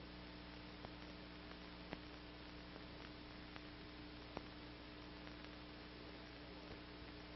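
Near silence: a faint steady hum over hiss, with a few soft clicks, the background noise of an old film soundtrack.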